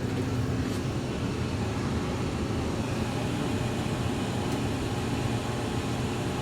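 Lennox gas furnace running in heat mode: a steady rush of burners and blower air with a low hum.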